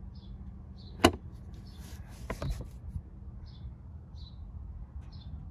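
A sharp click about a second in, then a short rustle and a few lighter clicks: a pickup truck's cabin controls or compartment being handled.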